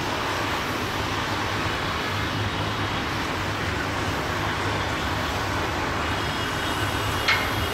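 Steady low rumble and hiss of distant engines and traffic, with one sharp click about seven seconds in.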